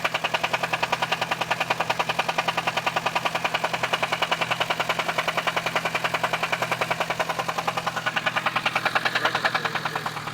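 1998 Mitsubishi Eclipse GS-T's turbocharged 4G63T four-cylinder running with a loud, rapid, even knock, about ten a second, over a steady hum. The knock grows louder near the end. It is the sign of a spun bearing and crankwalk, which the owner found when the engine was torn down.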